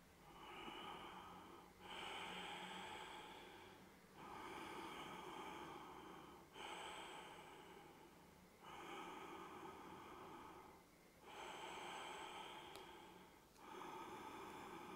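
Faint, slow breathing of a woman holding a yoga squat: steady breaths in and out, each about two seconds long, following one another with brief pauses between.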